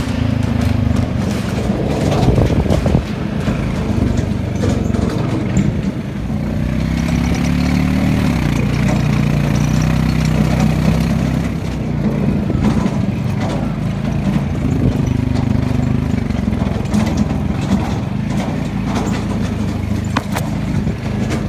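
A small vehicle engine running while driving along a rough dirt trail, its pitch rising and falling with the throttle, with knocks and rattles from the bumps.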